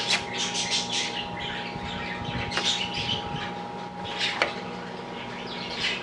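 Birds chirping again and again over a steady low hum, with a sharp click about four and a half seconds in.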